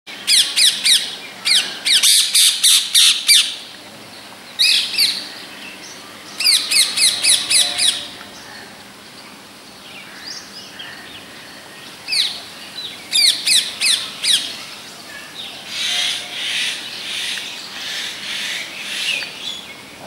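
Rose-ringed parakeet calling in bouts of rapid, high-pitched sharp notes, several a second, each bout lasting a second or two with pauses between. The calls are quieter over the last few seconds.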